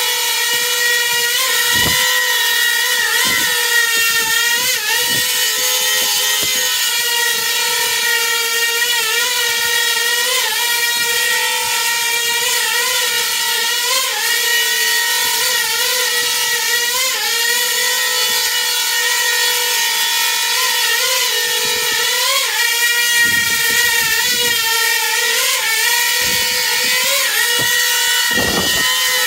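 Coaxial multicopter's electric motors and propellers hovering, a steady high whine whose pitch wobbles briefly every second or two as the flight controller twitches the craft during its AutoTune run. A few dull low thumps come and go.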